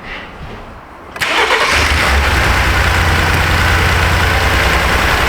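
A 2018 Ford F-150's twin-turbo EcoBoost V6 cranks and starts about a second in, then settles into a steady idle. It skips just after catching, the brief startup misfire tied to a cylinder 4 injector B circuit fault.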